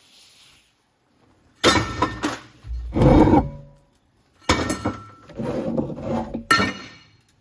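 Metal clanking and clinking in four sudden bursts, with brief ringing after the strikes.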